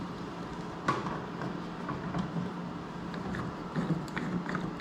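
Scattered clicks and small knocks from a Powertec frame clamp's crank and strap mechanism being worked by hand to readjust it, the sharpest click about a second in. A steady low hum runs underneath.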